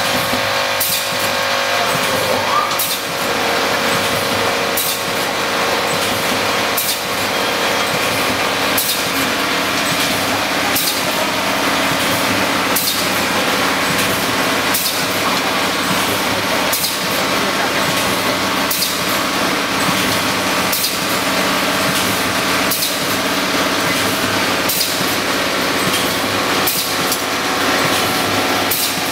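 HMK1600 corner-spout doypack filling and sealing machine running: a steady mechanical hum with several steady tones, cut through by sharp clacks in an even cycle, the strongest about every two seconds with fainter ones between.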